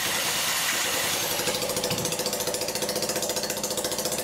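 Homemade single-cylinder rotary-valve engine running on its own, firing rapidly and evenly. A thin high whine over it stops about a second in.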